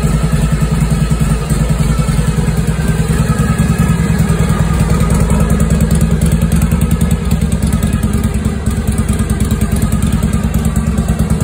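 Harley-Davidson Shovelhead V-twin engine of a 1973 FLH idling steadily with an even pulsing exhaust beat.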